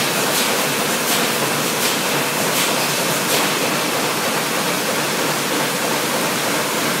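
Steady rushing noise of a factory floor with plastic injection moulding machines and overhead fume extraction running. A faint hiss repeats about every three-quarters of a second through the first half.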